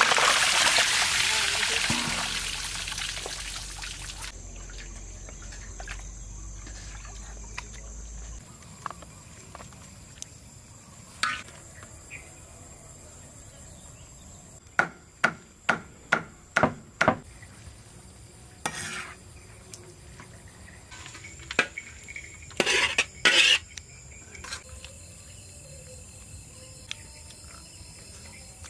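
Cooking utensils working against pots and bowls: a loud hiss at the start that dies away over about four seconds, then scattered clinks and knocks, with a quick run of about six knocks near the middle.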